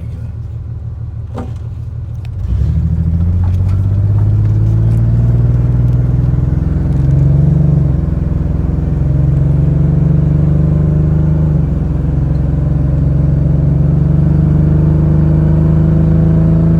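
1999 Ford Ranger's 4.0-litre V6 idling rough and vibrating from a misfire, then about two seconds in pulling away and accelerating. The engine pitch rises, drops back at two gear changes and climbs again.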